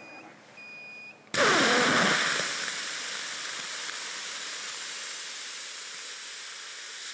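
Two short high beeps, then a hybrid rocket motor ignites suddenly about a second in. It fires with a loud, steady, hissing roar, loudest as it lights, with a brief falling tone at ignition, and cuts off sharply at the end.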